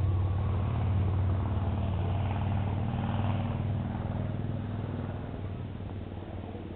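A steady low engine-like rumble, fading over the last few seconds.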